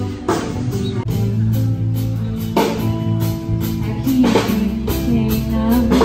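A band playing: a drum kit keeping a steady beat over bass and guitar.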